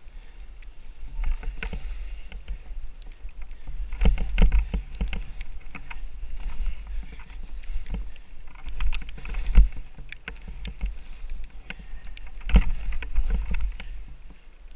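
Skis swishing and scraping through soft snow on downhill turns, with wind rumbling on the camera microphone and scattered sharp clicks. The sound surges louder a few times, about four, nine and a half and twelve and a half seconds in.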